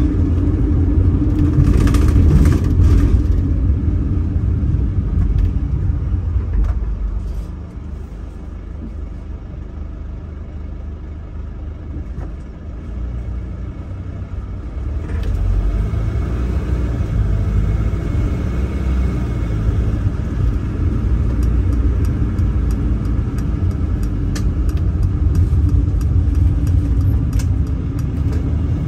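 Bus engine and road rumble heard from inside the bus. It dies down for several seconds in the middle, then grows louder again, with small ticks and rattles in the last few seconds.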